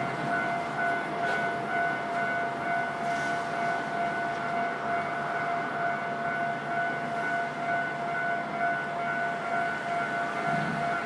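Electronic warning bell of a Japanese railway level crossing ringing steadily, a repeating high-pitched tone.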